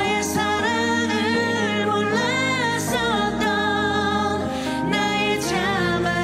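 A woman sings a slow Korean ballad live, her held notes swelling with wide vibrato, over a sustained keyboard accompaniment.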